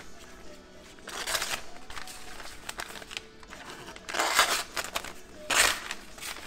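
Kershaw Thistle knife blade slicing through paper three times, each pass a short crinkly rasp. The edge still tears the paper rather than cutting cleanly, a sign it is not yet fully sharp.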